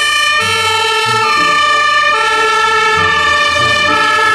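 German fire engine's two-tone siren (Martinshorn), alternating between a lower and a higher chord about once a second.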